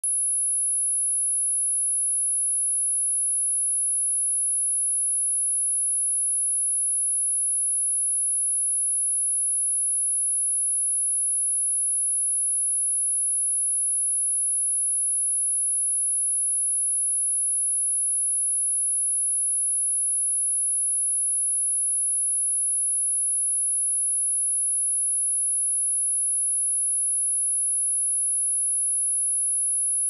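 A single steady, high-pitched 10565 Hz sine-wave test tone, held unchanged, as used for testing speakers or shaking water and dust out of them.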